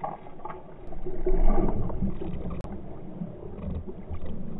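Muffled water splashing and sloshing, loudest about a second and a half in, with a single sharp click near the middle.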